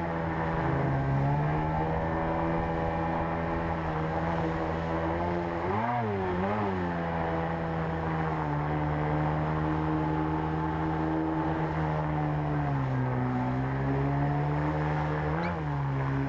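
Outboard water-jet motor pushing an inflatable boat upriver, heard from on board over rushing river water. It runs at a steady pitch, with two quick dips and rises in revs about six seconds in, a drop in revs later on and a short rev blip near the end.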